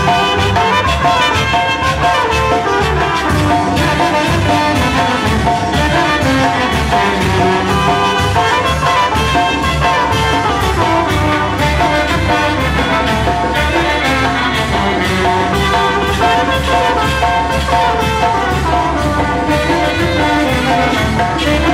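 Loud brass band music with a steady beat, playing for carnival dancing.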